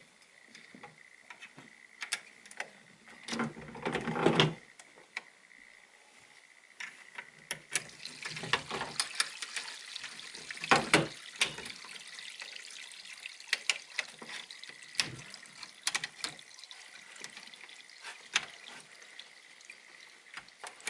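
Metal and plastic parts of a G3 Enzo telemark binding being handled and fitted together: irregular clicks, taps and scraping, with a louder rattling cluster about four seconds in and a busier stretch of clicks and scraping from about seven seconds on.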